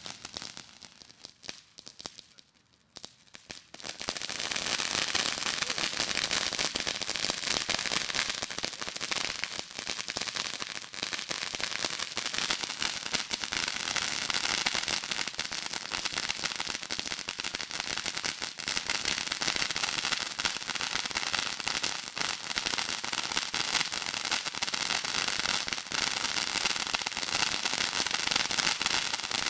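Consumer fireworks fountain crackling steadily with a dense stream of rapid small pops, starting about four seconds in.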